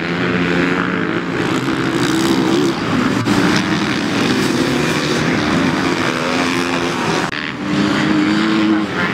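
Racing car engines running at speed, their pitch rising and falling as the cars accelerate and lift off. The sound dips briefly about seven seconds in.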